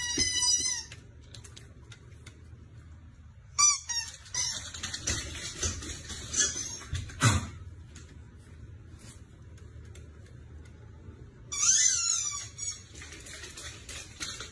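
Small husky-marked dog giving high-pitched squealing yips in three short bursts, the longest near the end falling in pitch, with one thump about halfway through.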